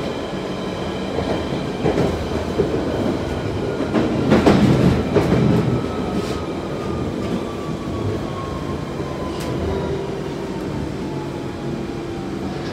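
London Underground 1992 stock Central Line train heard from inside the carriage while it runs on open track: a steady rumble of wheels on rails with several sharp clacks over rail joints. A thin whine slowly falls in pitch throughout.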